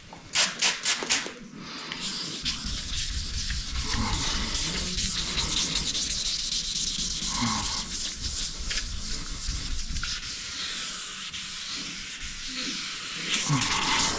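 Sandpaper wet sanding the primer on a car's hood by hand, a steady scrubbing hiss of strokes over the wet panel. It starts after a quick run of sharp clicks in the first second or two.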